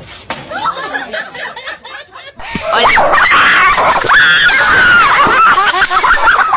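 A person laughing and shrieking, much louder from about two and a half seconds in.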